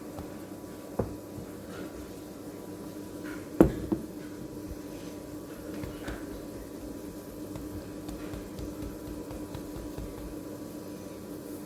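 Household items being handled: a few sharp knocks, the loudest about three and a half seconds in with a lighter one right after, over a steady low hum.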